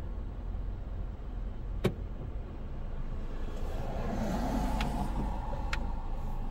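Street traffic at a city intersection: a steady low rumble of engines and tyres, with a car passing by from about three and a half seconds in, its tyre noise swelling and then fading. A single sharp click a little under two seconds in is the loudest sound.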